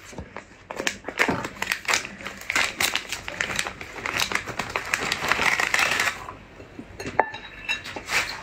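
Thin clear plastic bag holding soy-marinated crabs crinkling and crackling as it is torn open and handled, thickest in the middle. A single sharp click comes about seven seconds in.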